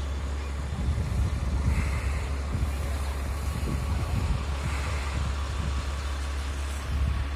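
Diesel engine of a truck-mounted crane running steadily with a deep, even hum, driving the crane during a lift. Irregular low rumbles of wind on the microphone sit over it.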